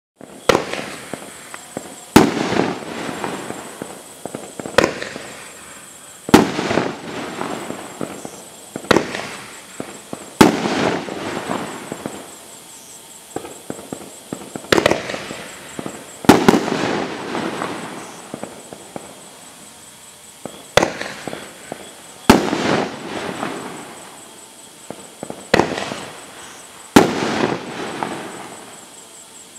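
A 500-gram aerial repeater cake of 2-inch brocade crown shells firing. The sharp reports come in six pairs, each a lift shot followed about a second and a half later by a louder shell burst that trails off over a second or two.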